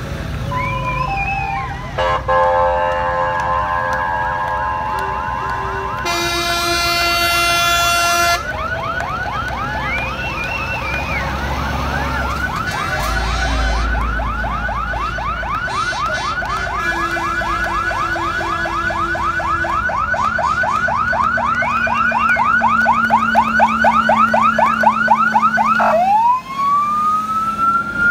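Sirens of a column of fire engines, several overlapping: fast yelping sirens over most of the stretch, with a long horn blast about six seconds in, and a siren winding up again near the end.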